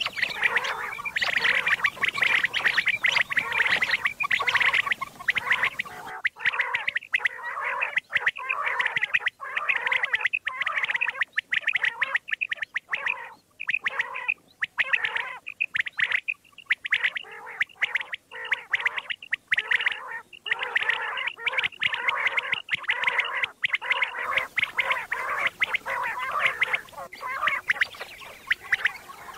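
Common quail calling, a dense run of rapid, repeated calls with only brief gaps. The background hiss drops away about six seconds in and comes back near the end, as at a splice in the recording.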